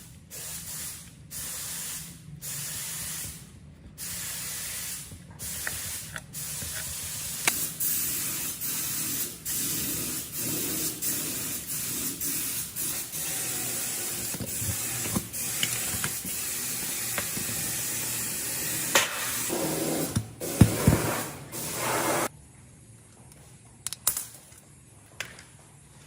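Pressurised spray hissing in several short bursts, then held almost continuously for about fifteen seconds before cutting off near the end, with a few sharp knocks toward the end of the long spray.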